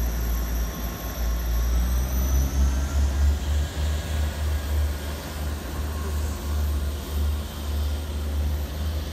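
South Western Railway Class 159 diesel multiple unit pulling away from the station, its diesel engines running under power as it departs. A deep rumble swells and fades throughout.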